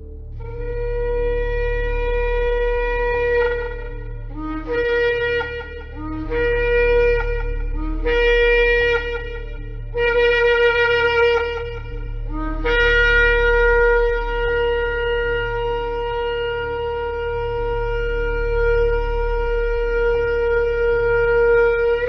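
Shofar (ram's horn) sounding. It gives one long blast, then four shorter blasts, each scooping up into its note, then a very long held blast on the same steady pitch.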